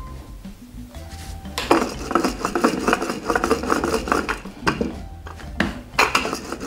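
Wooden rolling pin rolled back and forth over a thin round of dough on a hard floured worktop, rattling and clacking rapidly. It starts about a second and a half in and breaks off briefly near the five-second mark.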